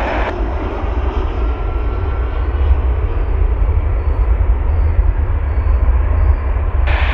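Jet engines of an Airbus A320-family airliner on short final to land, a steady loud rumble with most of its weight in the deep bass.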